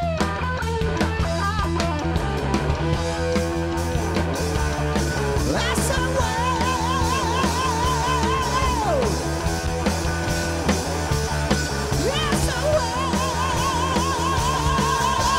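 Live rock band: an electric guitar solo over drum kit and bass guitar. Long high notes are held with a wide vibrato, one about six seconds in and another near the end.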